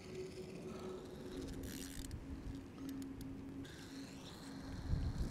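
Wind-up spring motor of a 3D-printed toy boat whirring as it unwinds: a steady thin whine that drops in pitch about a second and a half in. Wind buffets the microphone near the end.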